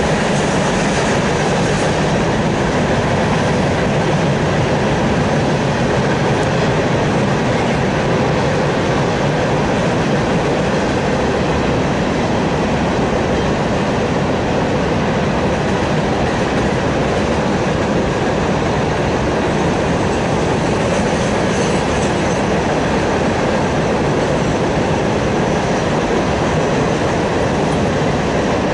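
A freight train's cars rolling past: a loud, steady noise of steel wheels running on the rails.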